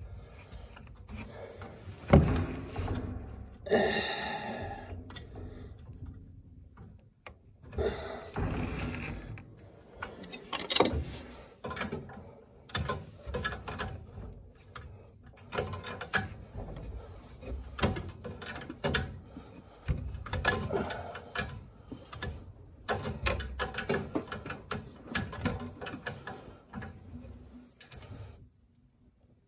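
Hands and a small tool working at a boiler's gas valve, its gas pipe and its wiring: irregular clicks, knocks and rustles of metal parts, with a louder spell of handling about four seconds in.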